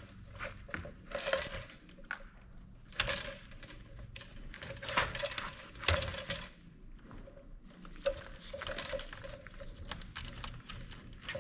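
Irregular plastic clicks, knocks and scraping as an in-tank fuel pump is worked by hand out of its tight-fitting plastic housing, with a few sharper clicks.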